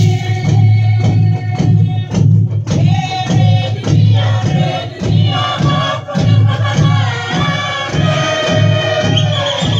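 Torres Strait Islander dance music: a group of voices singing and chanting together over a steady, deep drumbeat.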